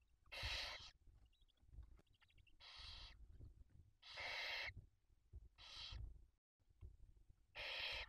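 Barn owls hissing in the nest: five breathy, rasping hisses of about half a second each, spaced roughly a second or so apart, with soft scuffing and rustling of movement in the nest between them.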